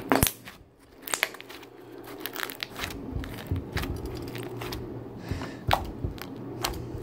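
Fingers poking and pressing a sticky blue slime, giving irregular sharp pops and crackles as it sticks to and pulls off the fingers and table. The loudest pops come just after the start and again late on.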